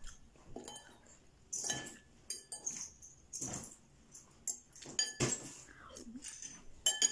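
Metal spoon and fork clinking and scraping against a ceramic soup bowl in short, scattered strokes, with brief slurps of chicken ginger broth in between.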